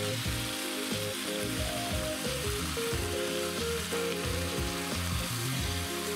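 Woodcocks sizzling steadily in olive oil and duck fat in an enamelled cast-iron casserole as they are turned with a wooden spoon. This is the gentle browning of the pre-cooking stage. Soft background music with held notes plays under it.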